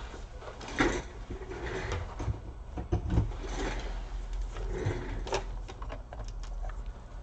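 Handling noise of a laptop power adapter and its cable being fetched and plugged in: irregular knocks, rustling and scraping, with a few short sharp clicks near the end.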